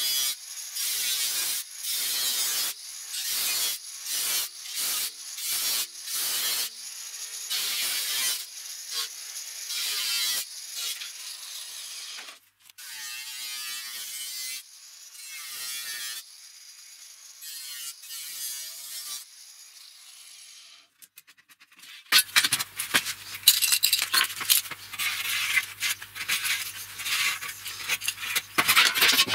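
Angle grinder with a cut-off disc cutting galvanized sheet steel, first in a run of short passes about a second apart, then in longer stretches. From about 22 seconds in, louder rattling and scraping of the thin sheet metal being handled takes over.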